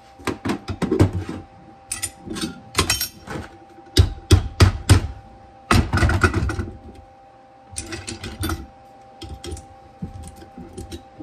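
Arc welding in short stop-start bursts of crackling, building up chipped steel at the top of a springer fork leg against a copper backing block. A faint steady hum runs underneath.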